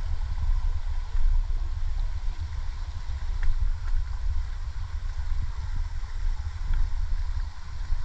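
Low, fluctuating rumble of wind buffeting the microphone, over a steady faint hiss, with a few small clicks.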